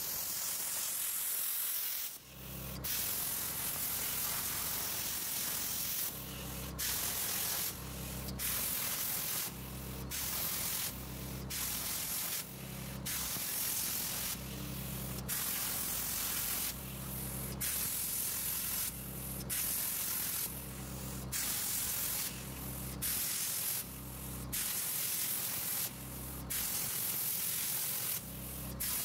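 Air-plasma cutter arc hissing steadily with its compressed air as a CNC-guided torch cuts 3/16-inch mild steel plate. The hiss drops out briefly about two seconds in. A low hum comes and goes every second or two under it.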